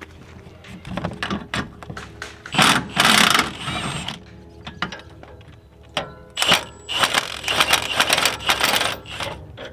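Cordless impact wrench hammering in bursts, one long run and then a short one and another long run, as it breaks loose and spins off the nuts on the Jeep's old front shock and sway bar end link. Background music plays underneath.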